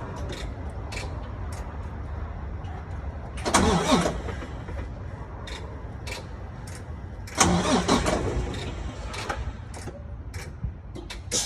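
Truck engine running with a steady low rumble, overlaid with many scattered sharp clicks and two louder surges about 3.5 and 7.5 seconds in.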